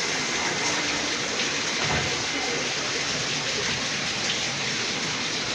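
Steady rushing of running water: an even hiss that holds at one level without breaks.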